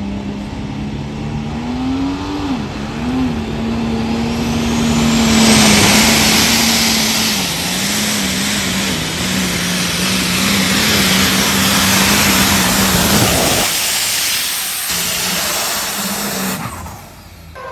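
Pulling tractor's engine running flat out under the load of a weight-transfer sled, with a high whine rising over the first several seconds. The engine sound cuts off abruptly about two-thirds of the way through, comes back more weakly for a few seconds, then drops away near the end.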